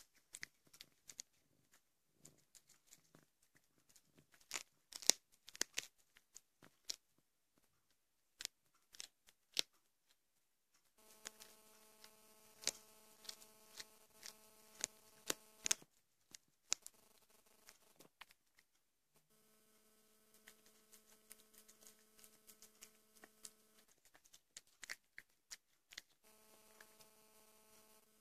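Cat chewing a whole mouse, bones included: irregular sharp crunches and clicks, busiest in the first ten seconds. A steady hum starts and stops three times in the background.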